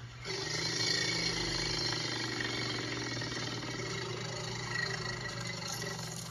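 Recorded elephant sound played by Siri through an iPhone's speaker. It is one steady, noisy call lasting about six seconds and cutting off near the end.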